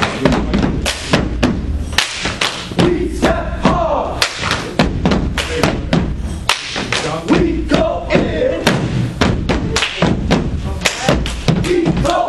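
Stepping: feet stomping on a stage floor and hands striking in a fast, even rhythm, about three to four hits a second, with shouted chanting between the beats.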